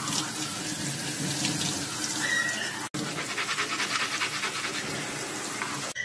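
Tap water running into a stainless steel sink, splashing over scallop shells in a mesh strainer while hands rub and rinse them. The sound cuts out for an instant about three seconds in.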